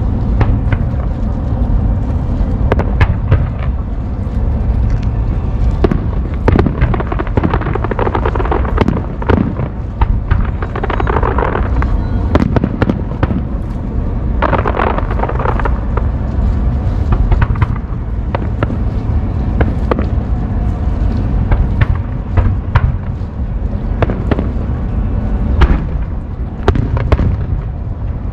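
Aerial fireworks bursting in quick, irregular succession: many sharp bangs and crackles over a continuous deep rumble, with a dense flurry of crackling about halfway through.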